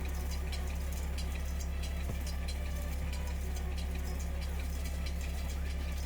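Skid steer's engine running steadily with a constant low hum, with scattered light clicks and rattles over it.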